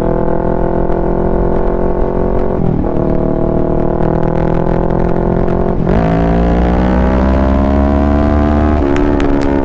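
Kawasaki Ninja 650's parallel-twin engine through a Mivv full-system exhaust under way: the revs drop at gear changes about three and six seconds in, then climb steadily. Near the end the revs jump and fall away, and the exhaust gives a few sharp crackles.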